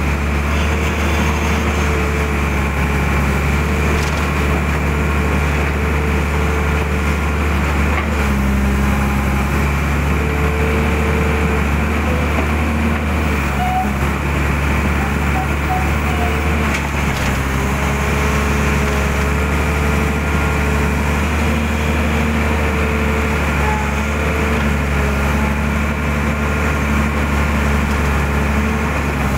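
Mitsubishi hydraulic excavator's diesel engine running steadily under working load while digging out a drain. Its drone stays even, and its tones shift in pitch several times as the arm and bucket move.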